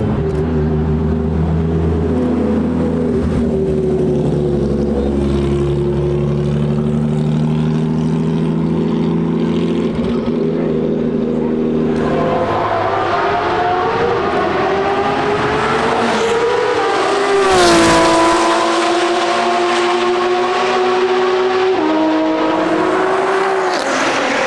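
Porsche 992 GT3 RS flat-six on a fully straight-piped Soul exhaust, running steadily at low revs as the car rolls along. About halfway through it revs up and pulls away, the pitch climbing with a couple of sudden drops at gear changes.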